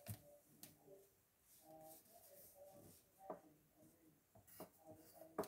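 Pencil writing on a paper worksheet on a desk: faint scratching with a few sharp taps.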